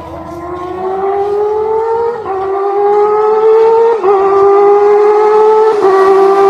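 Kawasaki ZX-25R's high-revving 250 cc inline-four accelerating hard. The engine's high-pitched howl climbs steadily and drops sharply three times as it shifts up through the gears, getting louder as it passes.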